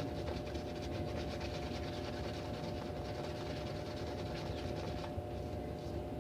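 Shaving brush working soap lather on the face: a quick, even run of bristly scratching strokes that stops about five seconds in.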